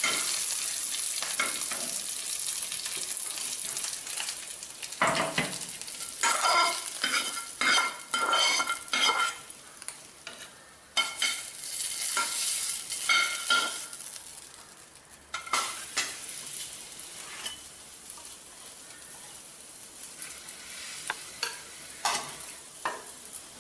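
A spatula stirring a tempering of cumin seeds, cashews, green chillies and curry leaves sizzling in a frying pan. From about five seconds in come separate scraping strokes with a faint ringing tone, and the sound grows quieter after about fifteen seconds.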